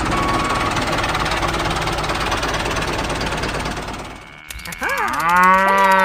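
A dense steady noise that cuts off about four seconds in, followed by a cow mooing: one long, loud moo starting near the end, its pitch bending at the start and then held.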